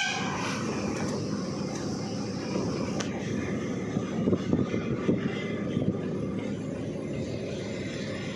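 Diesel lorry running on the road, heard from inside its cab: a steady engine rumble mixed with tyre and road noise, briefly louder and rougher around the middle.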